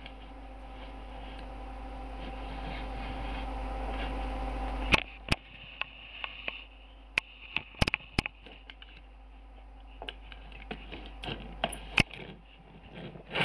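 A steady hum that slowly grows louder for about five seconds, then a series of sharp clicks and knocks as toy cars are handled and set down on a wooden table, the loudest knock near the end.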